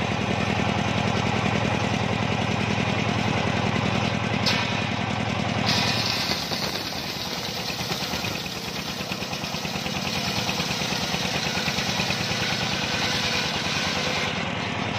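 Homemade table-mounted circular saw running with a steady pulsing mechanical drone. About six seconds in the blade bites into a mahogany plank, and a harsher, higher ripping noise holds until near the end.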